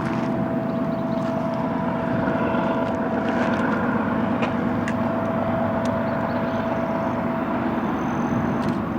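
BNSF freight train rolling past: a steady rumble of wheels on rail, with a steady high ringing tone running through it that fades out near the end.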